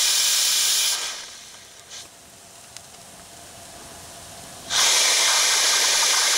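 Live steam hissing through the steam injector of a small wood-fired vertical boiler as its ball valve is opened and closed. The injector has not yet started feeding water. The hiss dies away about a second in, a light click comes in the quiet gap, and the hiss comes back suddenly near the end.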